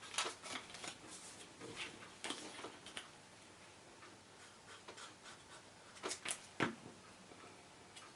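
Faint rustling and light taps of card stock being handled and set into place, a few sharper clicks about six seconds in.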